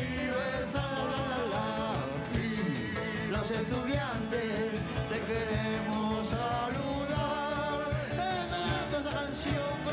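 A small live band playing, with a man singing over electric guitar and a cajón beaten in a steady rhythm.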